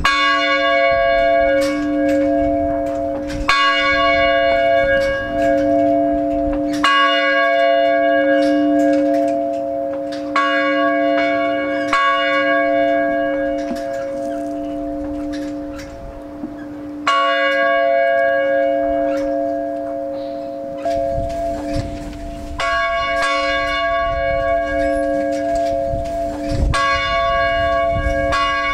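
A large bell hung in a wooden bell tower, rung by rope, struck about eight times at uneven gaps of two to five seconds, each stroke ringing on into the next.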